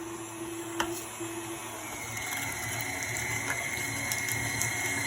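Stand mixer motor driving a meat grinder attachment as it grinds cubed venison: a steady mechanical running hum with a lower tone that drops out about a second in and a higher whine that starts about two seconds in and grows slightly louder, with a few light clicks.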